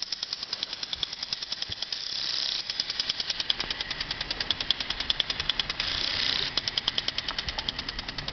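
Garden impact sprinkler ticking rapidly and evenly, about eight clicks a second, with a hiss of water spray twice.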